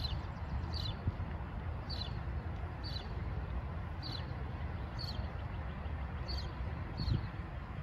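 A bird chirping, short high notes falling in pitch about once a second, over a steady low rumble.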